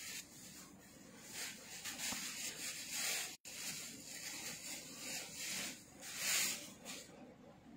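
Stiff raw silk fabric rustling in a series of soft swishes as it is handled.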